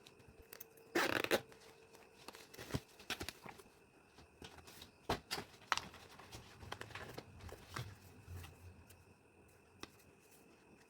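Packaging handled by hand: a short loud rip about a second in, then scattered crinkles, taps and clicks.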